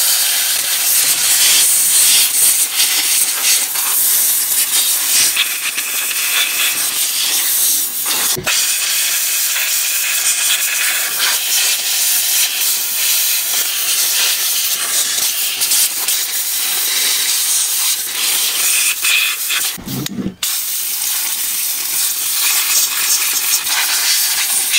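Compressed air rushing from an air-compressor blow gun nozzle in a loud, continuous hiss, blasting rinse water off a wet RC truck's chassis and bearings. The hiss cuts out briefly twice: about 8 seconds in and again about 20 seconds in.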